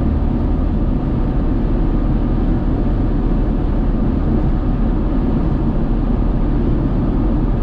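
Steady road noise inside a pickup truck's cabin cruising at highway speed.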